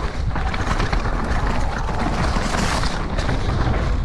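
Downhill mountain bike running fast down a loose dirt trail: a heavy, continuous rumble of wind buffeting the helmet-mounted microphone, with tyre roar and short clattering knocks from the bike over bumps.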